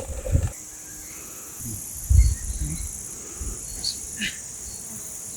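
Insects chirring steadily in a high continuous trill, with a few low thumps near the start and about two seconds in.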